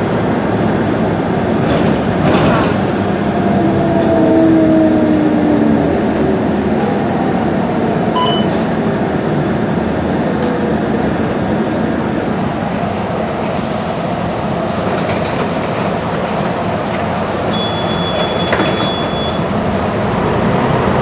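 Mercedes-Benz O405 bus with Walter Alexander body heard from inside the passenger cabin while moving: a steady din of diesel engine, drivetrain and road noise, with gliding tones over the first few seconds and a few short rattles and knocks.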